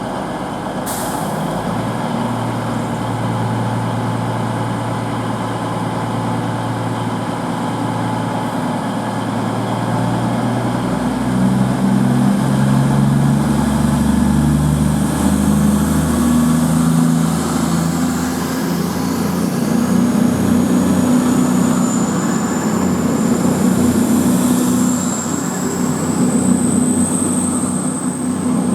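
Class 221 Super Voyager diesel-electric multiple unit pulling away, its underfloor Cummins diesel engines running low and then throttling up about ten seconds in. A high whine rises slowly in pitch over the second half as the train gathers speed.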